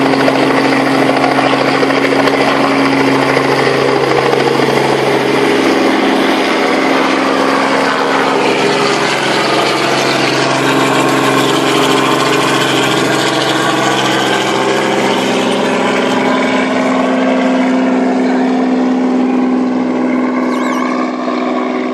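Small two-bladed helicopter lifting off and flying away: steady engine and rotor noise whose pitch bends downward as it passes and moves off, fading near the end.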